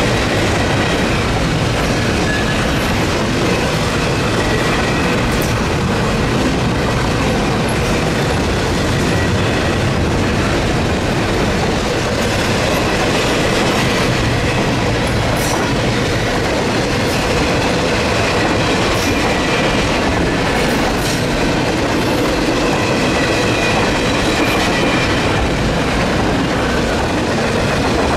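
Freight train cars rolling steadily past close by: a loud continuous rumble with wheels clacking over rail joints and a faint high wheel squeal at times.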